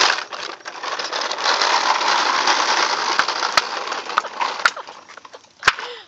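Hard plastic wheels of a toddler's push-walker toy rolling over concrete with a dense clattering rattle that fades out after about four and a half seconds, followed by a few sharp clicks.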